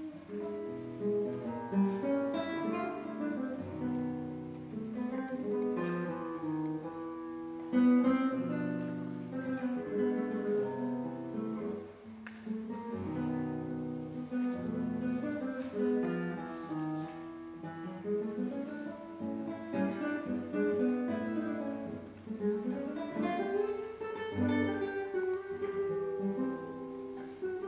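Solo classical guitar played fingerstyle: a continuous passage of plucked melody over bass notes, with a few sharper accented chords, the strongest about eight seconds in.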